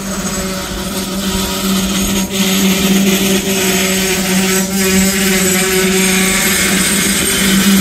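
Freight train tank cars rolling past on the rails: a steady wheel-and-rail noise with a low, even drone, growing a little louder toward the end.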